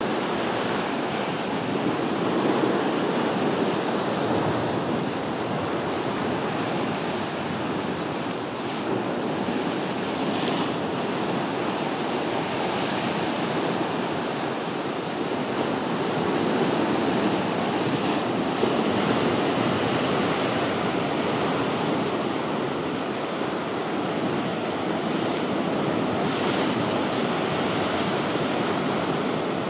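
Mediterranean sea waves breaking and washing over a rocky shore: a continuous rush of surf that swells and eases every several seconds.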